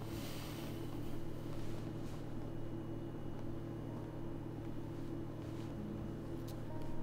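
A steady low hum runs throughout, with a brief rustle in the first half second and a few faint clicks.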